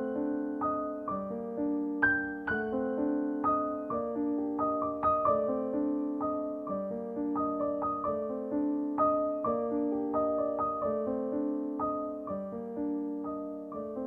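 Background piano music: a gentle melody of single notes and chords, struck about twice a second, each fading before the next.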